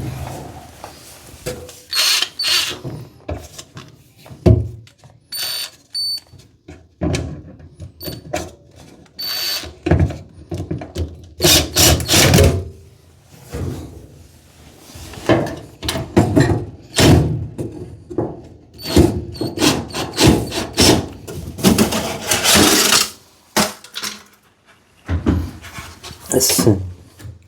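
Irregular knocks, thunks and clatter from hands working on a clothes dryer and its vent duct, detaching the worn duct from the dryer.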